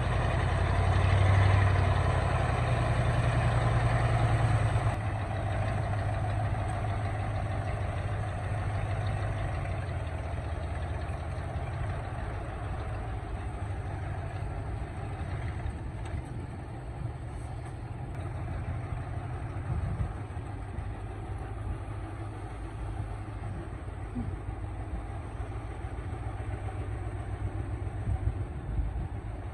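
Excavator engine running: louder and working for about the first five seconds, then settling to a lower, steady run.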